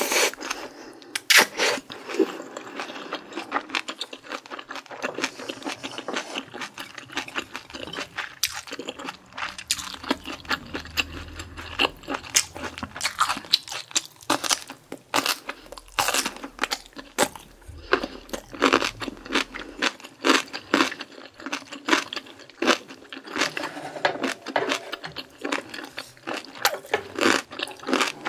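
Close-miked eating sounds: chewing with many crunches and wet mouth clicks, with slurps of bulgogi hot-pot broth from a wooden spoon and bites of kimchi.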